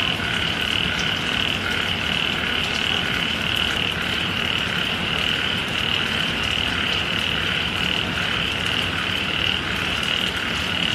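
A dense chorus of frogs calling together: a steady, unbroken, high-pitched din.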